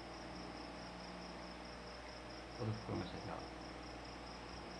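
Steady high-pitched insect trill, pulsing evenly, over a low hum. A couple of brief faint low sounds come about two and a half to three seconds in.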